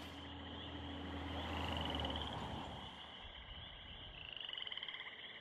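Frogs calling in a night chorus, overlapping trills repeating. A low hum underneath fades out about two seconds in.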